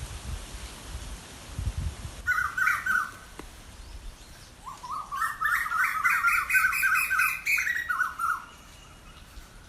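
A bird calling in two bouts of quick, repeated downward-sliding notes: a short burst about two seconds in, then a longer run of about four or five notes a second from about five to eight seconds in, over a steady hiss.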